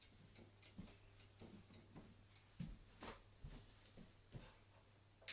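Faint low mains hum of a ceiling fluorescent light that has just come on, with scattered light clicks and knocks, a louder knock about three seconds in and a sharp click at the end.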